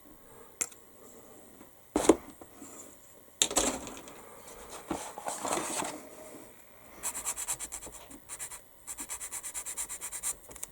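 A small plastic model part being sanded on a sanding stick or pad: a knock and some rough scraping, then two runs of quick back-and-forth strokes.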